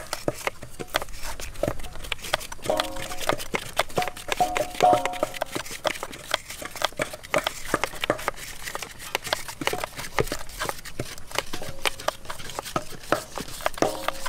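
Kitchen knife chopping red chili peppers on a round wooden chopping block, many quick irregular taps of the blade on the wood.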